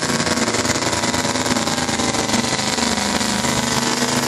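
Pull truck's engine running loud and steady, its firing pulses giving a dense rapid throb that holds one pitch.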